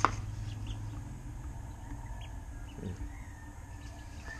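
Ducklings peeping faintly while they feed, over a low steady hum. A single sharp knock right at the start.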